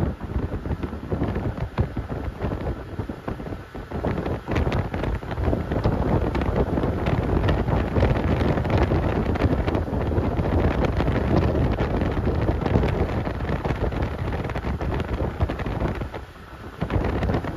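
Wind buffeting the microphone on a moving boat: a dense, gusty rush with a brief lull near the end.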